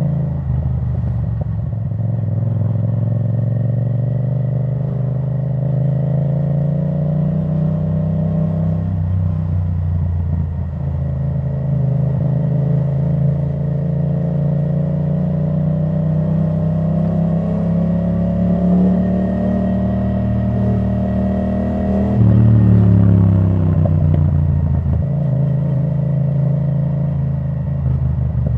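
2017 Yamaha MT-07's parallel-twin engine running through an Akrapovic titanium exhaust with the dB killer removed, riding along. The revs climb slowly for several seconds. About three-quarters of the way through the sound swells briefly and the revs fall away quickly.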